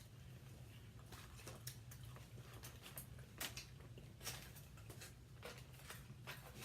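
People chewing and eating, with irregular small wet clicks and smacks, over a low steady hum.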